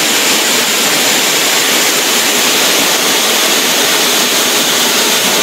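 QSQ-2200 multi-blade stone cutting machine's large circular saw blades cutting through a stone block under a water feed: a loud, steady, even hiss of blade grinding on stone mixed with spraying water and slurry.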